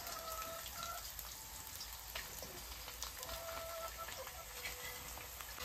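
Zongzi (sticky rice dumplings) frying in oil in a pan: a steady light sizzle with many small crackles.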